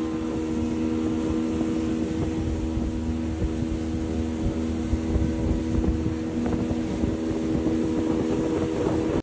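Boat's outboard motor running at a steady speed, with a low rumble beneath. One of its lower tones drops out about two-thirds of the way through.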